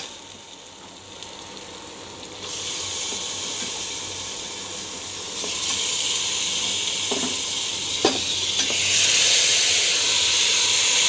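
Marinated mutton sizzling as it goes into hot fried onion-tomato masala in a pressure cooker, the sizzle growing louder in steps. There is a sharp clink of metal at the start and a couple of knocks later.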